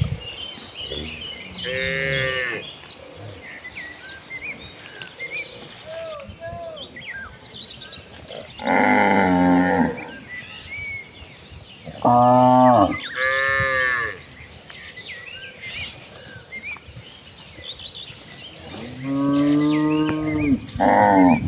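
Cattle mooing: about six drawn-out calls in three groups, some low and some higher-pitched, with quieter gaps of several seconds between them.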